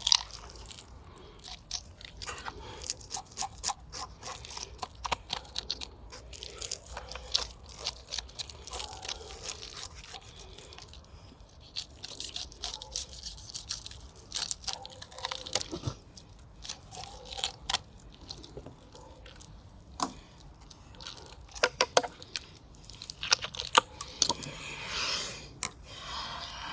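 Knife cutting into a fish, with irregular sharp crunches and clicks.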